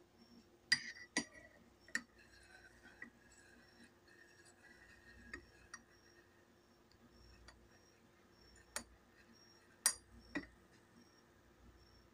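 Metal spoon clinking against the inside of a ceramic tea mug while stirring: a handful of separate sharp clinks, several with a brief ring, the loudest about a second in and again near the end.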